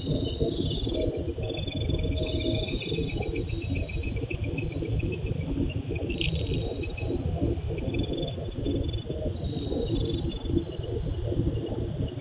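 Crickets chirping in short repeated trills over a steady low rumble, heard through a low-quality CCTV microphone. A single sharp click comes about six seconds in.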